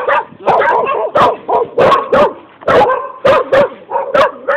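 Dog barking repeatedly in a quick run of short barks, about two to three a second.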